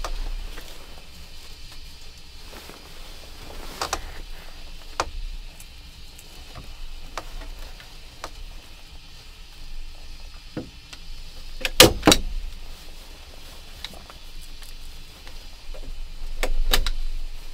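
Hand staple gun driving staples through jute insulation into a wooden cabin door: a few sharp clacks several seconds apart, two of them in quick succession past the middle, with quiet handling in between.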